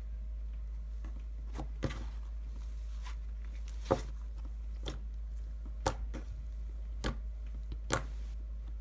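Cookie-dough cloud slime being pressed, stretched and poked by hand, giving about seven sharp sticky pops and clicks at irregular intervals. A steady low hum lies underneath.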